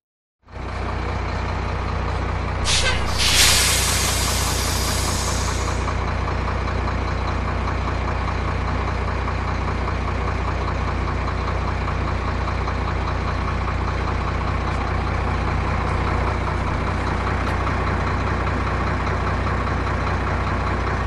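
Truck engine idling steadily, with a loud burst of air-brake hiss about three seconds in.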